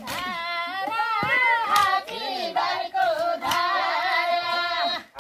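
Unaccompanied villagers' voices singing a Nepali folk work song of the kind sung while weeding maize, with long held, wavering notes and more than one voice at a time.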